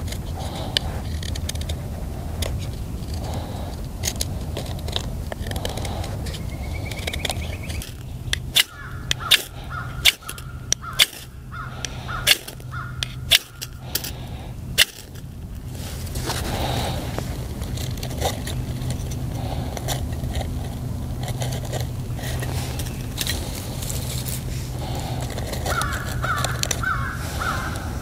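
Steel knife blade shaving a wooden stick, steady scraping strokes, followed by a run of about eight sharp strikes as the leaf tinder in a small wood-burning stove is lit. A bird calls several times in quick succession near the end.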